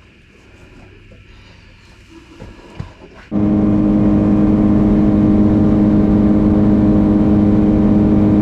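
A few faint knocks, then about three seconds in an outboard motor comes in abruptly and runs loudly and steadily at an even pitch.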